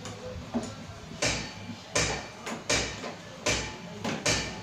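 A screwdriver backing a screw out of a Honda Activa scooter's plastic floor panel: about six short scraping creaks, one with each twist, about three-quarters of a second apart.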